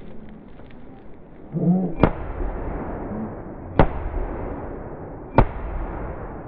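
Three gunshots, each with a short echo, about a second and a half apart, with a brief shout just before the first.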